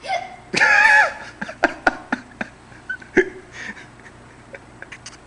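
Laughter: a high-pitched voiced squeal about half a second in, then a quick run of short laughs.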